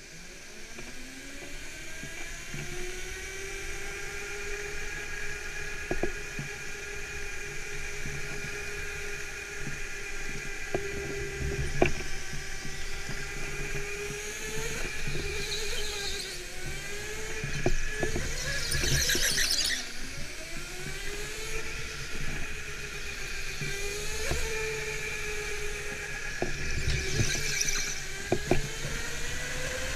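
Go-kart's motor whining, rising in pitch over the first few seconds as it accelerates, then rising and falling with speed through the corners. The tyres squeal in short bursts three times, and a few sharp knocks come between.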